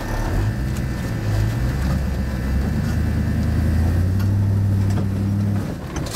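Off-road 4x4's engine pulling under load at raised revs while crawling tight past a rock wall. The revs step up just after the start, hold, then ease off near the end.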